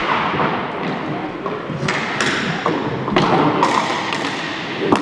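Hockey sticks clacking and slapping during play on a dry floor: a handful of sharp hits, the loudest near the end, each echoing around a large hall over a steady din of play.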